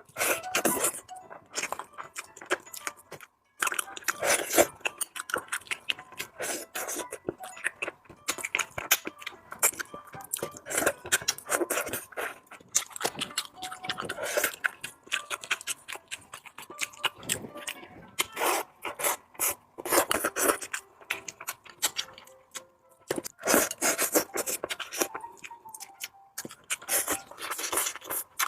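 Close-miked eating sounds: chewing and wet mouth clicks and smacks of someone eating rice, in irregular bursts with short pauses, with some scraping.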